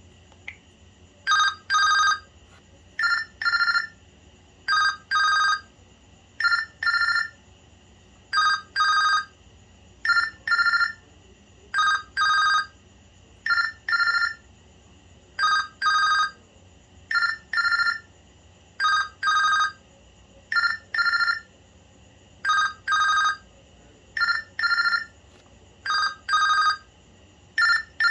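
LG Classic Flip flip phone playing a ringtone through its small speaker: an electronic imitation of a telephone's double ring. Two short rings come close together, then a pause, and the pattern repeats steadily about every second and a half to two seconds.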